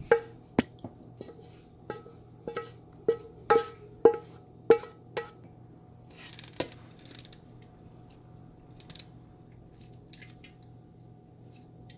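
A metal spoon knocking against the rim of a metal cooking pot, each knock ringing briefly, about a dozen knocks in the first five seconds and one more a little later, as rice is tapped off the spoon into the pot.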